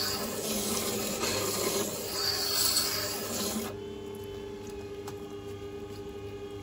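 Steel knife blade in a jig being ground on the wet grinding stone of a Scheppach Tiger 3000VS sharpener with hardly any pressure, a gritty rubbing that swells with each pass. A little over halfway through the grinding stops abruptly as the blade comes off the stone, leaving the steady hum of the machine's motor.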